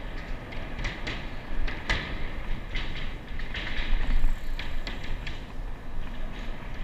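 Steady rumble of wind and motion noise from a camera travelling along a steel-bridge walkway, with frequent short sharp rattles throughout.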